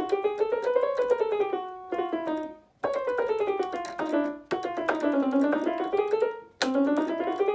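Keyboard playing chromatic scales: quick runs up an octave one half step at a time and straight back down, repeated three or four times with short breaks between the runs.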